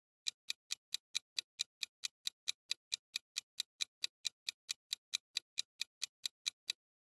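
Countdown timer sound effect: a clock-like tick repeating evenly about four and a half times a second, stopping suddenly near the end as time runs out.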